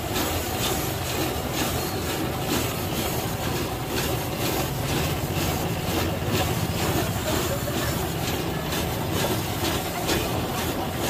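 Block of ice being shaved for a gola ganda (Pakistani shaved-ice ball): a rhythmic scraping at about two strokes a second.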